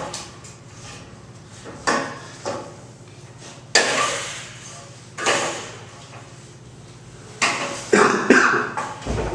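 Steel bed frame knocking and clanking as its side rail's hook brackets are worked into the slots of the metal bed end. There are several sharp metal knocks spread through, with a quick cluster of them near the end as the rail seats.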